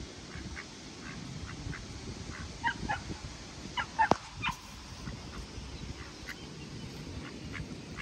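Birds giving short, repeated calls, loudest in a cluster around the middle, over the steady rush of a waterfall and river.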